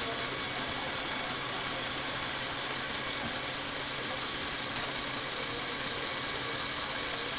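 Lego Technic motor and gear train running steadily as the turntable rotates and tilts: an even, hissy mechanical whir with no breaks.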